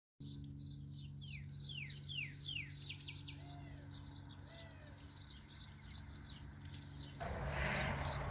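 Birds chirping outside, with a run of quick downward-sweeping calls in the first few seconds, over a steady low hum. About seven seconds in, a louder rush of rustling noise begins.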